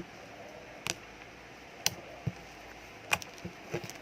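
Homemade slime being squeezed and stretched by hand, giving short sharp pops and clicks at irregular intervals, about one a second.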